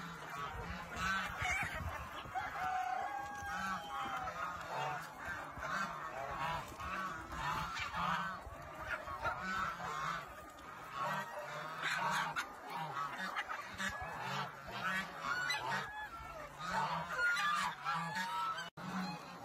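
Hen sitting on her eggs, calling over and over in short pitched calls above a low, pulsing cluck. The sound drops out for an instant near the end.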